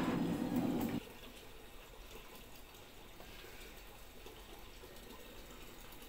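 Bruhm front-loading washing machine: a loud steady machine hum stops suddenly about a second in, just after a click from its control-panel button, leaving a faint steady hiss of water.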